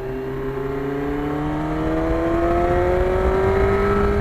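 1991 Yamaha FZR1000's inline-four engine pulling under acceleration, its pitch rising steadily.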